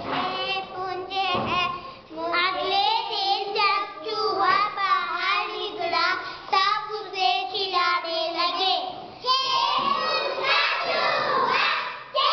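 Young children singing a song in a classroom, with several voices together. About three-quarters of the way in, more children join and the sound becomes a crowded chorus of many voices.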